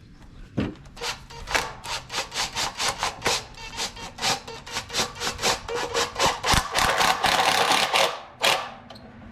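Rhythmic rasping strokes, about three a second, running together into a continuous rasp near the end and then stopping abruptly.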